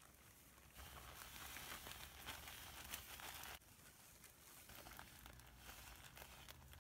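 Faint crinkling and rustling of a thin plastic bag as wheat flour is poured out of it into a plastic bowl. It is loudest for the first few seconds, drops suddenly, and then goes on more softly with a few small ticks.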